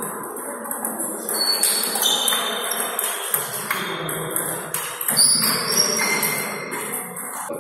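Table tennis balls clicking off tables and bats in rallies, with hits coming from several tables at once. Short high squeaks, from players' shoes on the hall floor, come in between the hits, over a background of hall chatter.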